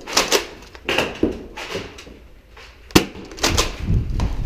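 Irregular knocks and thuds indoors, with one sharp crack about three seconds in and a run of heavier thumps just after it.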